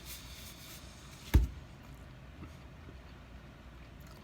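A brief faint rustle, then a single sharp thump a little over a second in, over quiet room tone.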